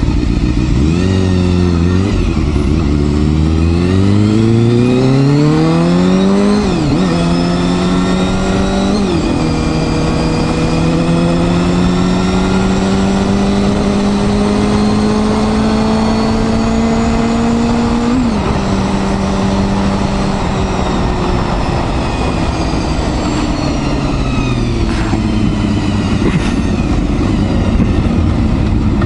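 Honda Hornet 250's high-revving inline-four engine under way: it climbs in pitch and drops back at each of three quick upshifts in the first nine seconds, holds a steady, slowly rising note while cruising, shifts again just past halfway, then the note gradually falls as the bike slows.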